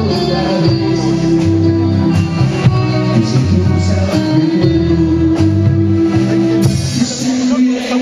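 A live band playing Nueva Ola pop with a man singing into a microphone: long held notes over bass notes and a steady beat.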